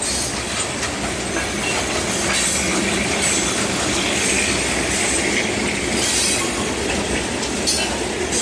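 Norfolk Southern freight train's loaded hopper cars rolling past slowly, steel wheels running and clacking over the rails in a steady rumble. A few short high-pitched wheel squeals cut through now and then.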